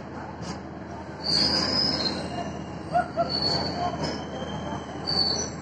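Repeated short, high-pitched metallic squeals of railway equipment, metal on metal, beginning about a second in and recurring several times over a steady rumble.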